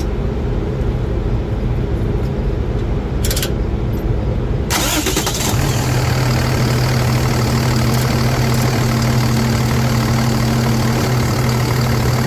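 Truck engine starting about five seconds in after a low rumble, then settling into a steady idle. The loose starter cable has just been tightened, and power is back.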